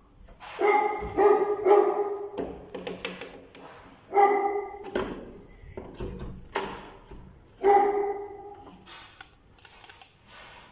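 A dog barking in three bursts: a quick run of barks near the start, then single drawn-out barks about four and eight seconds in, with scattered clicks and knocks between them.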